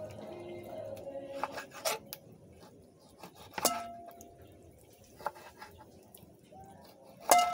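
Kitchen knife clinking against a dish while cutting up raw pork: a few sharp clinks with a brief ring, the loudest near the end.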